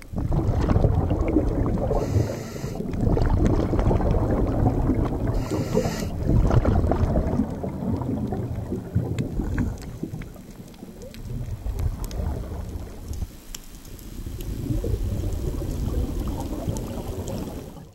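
Underwater water noise: a low, uneven rumbling rush that swells and eases, with two brief hissing bursts about two seconds and five and a half seconds in.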